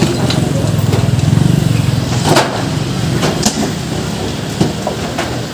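A vehicle engine running steadily, loudest in the first two seconds, with a few sharp knocks from demolition work on wood and sheet metal.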